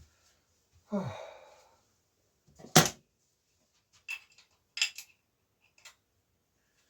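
Metal tools on bicycle parts: a sharp knock, then several short, ringing metallic clinks, preceded about a second in by a brief low sound falling in pitch.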